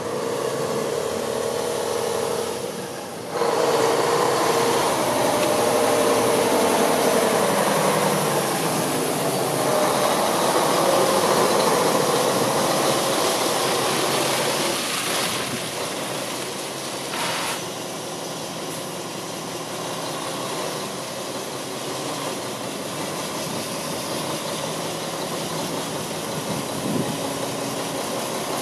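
Diesel engine of a 2007 Mack CXN613 tandem-axle day cab tractor running steadily, with a short drop in level about three seconds in.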